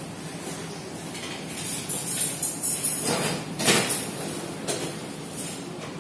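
Soup spoon clinking and scraping against a bowl of congee: a run of irregular clinks and scrapes about two to four seconds in.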